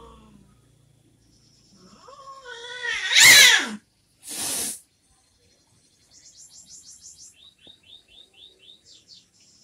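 A cat's drawn-out caterwaul that rises in pitch and swells loud, followed by a short hiss: an aggressive warning. Faint high, rapid chirping follows in the background.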